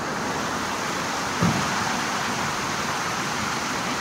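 Steady rush of river water pouring fast over a low causeway weir, with one short thump about one and a half seconds in.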